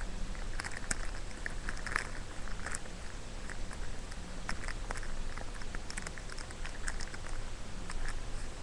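Fingers squeezing and rubbing a soft squishy toy right at the microphone: scattered small clicks and rustles throughout.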